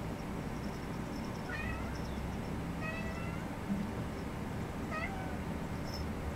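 A domestic cat meowing three times, short calls about a second and a half apart.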